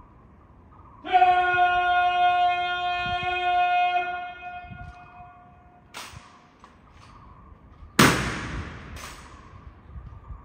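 Honour guard drill: a long drawn-out call held on one pitch starts about a second in and fades over about four seconds. Then comes a short click and two sharp cracks about a second apart, the first much louder, as rifles and boots strike the stone floor.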